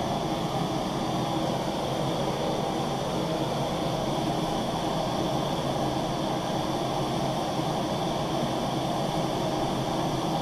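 Two Bernzomatic TS4000 propane torches firing into a small melting kiln as it warms up, making a steady, even rushing noise.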